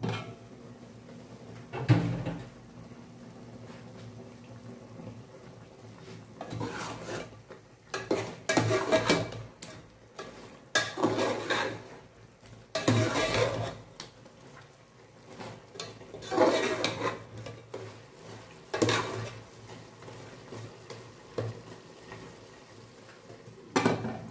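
Aluminium pot lid lifted off with a clank, then a metal spoon scraping and stirring chicken pieces in the pot in several strokes, and the lid set back on with a clank near the end.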